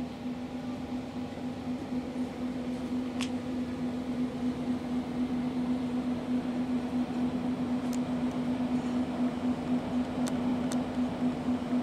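Steady mechanical hum with one constant low tone, the noise around it growing a little louder after about four seconds, with a few faint short ticks.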